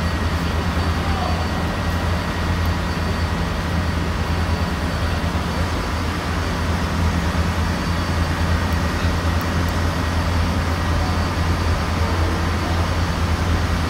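Heavy diesel machinery running steadily with a continuous low rumble and a faint high whine, over a faint murmur of people.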